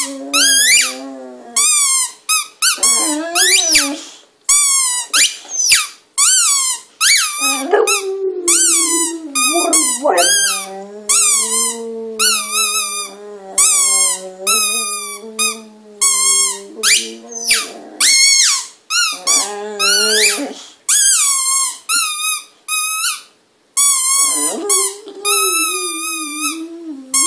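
A boxer dog howling in long, drawn-out, wavering notes, with her head raised. Over it runs a steady string of short, high-pitched, warbling squeaky notes.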